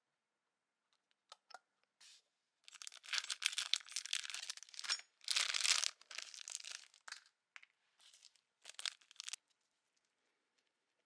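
Packaging being crinkled and torn open in a run of crackling bursts from about three to nine seconds in, with a short break near the middle.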